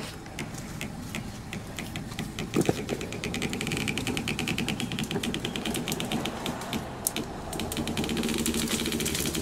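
Small car's engine running at low revs as it creeps forward, straining on a tow rope tied to a hedge, with a fast, even ticking clatter that grows louder after about three seconds. A single sharp knock comes about two and a half seconds in.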